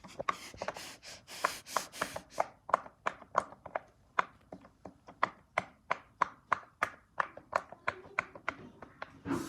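Small bubbles being pressed and popped one after another by fingers, a steady run of short pops at about three a second.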